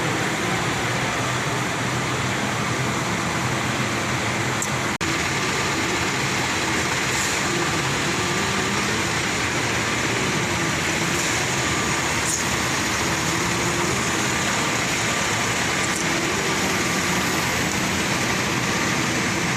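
Steady industrial machinery noise, the constant running of a lead-smelting cupola furnace plant with its fans and motors, with a momentary cut-out about five seconds in.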